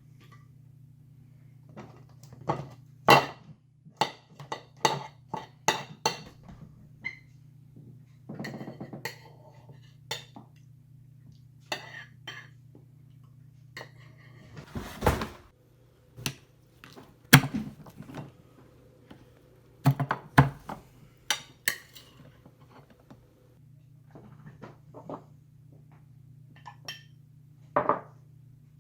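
A metal spoon knocking, clinking and scraping against crab-leg shells and a plate: irregular sharp clicks and knocks, with a short rasping scrape about halfway through.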